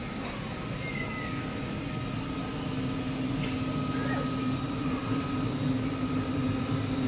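Steady low mechanical hum of a large warehouse store's sales floor, growing a little louder a few seconds in, with a faint high whine above it and faint distant voices.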